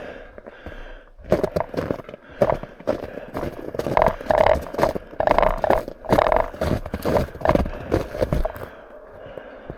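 Footsteps crunching through snow at a walking to jogging pace, about two steps a second, starting about a second in and stopping near the end.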